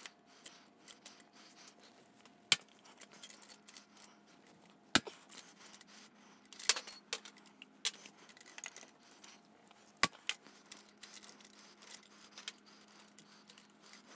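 Bolt cutters snapping through the pushrods of a Harley-Davidson Milwaukee-Eight engine: several sharp metallic snaps a few seconds apart, with light clinks of metal between. The pushrods are being cut in place so the cam can come out without removing the rocker boxes.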